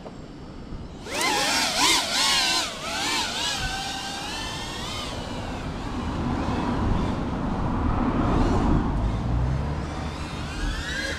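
Small FPV cinewhoop drone's motors and propellers whining. The whine starts about a second in and rises and falls in pitch as the throttle changes, turns duller and noisier in the middle, and rises again near the end.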